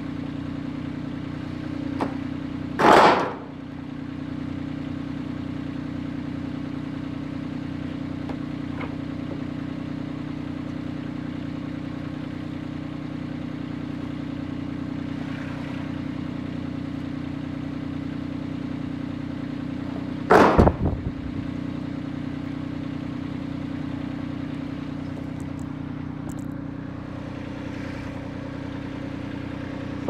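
Corrugated metal roofing sheets being pulled off a lumber pile and tossed aside, with two loud metal crashes: one about three seconds in and one about twenty seconds in. An engine idles steadily underneath.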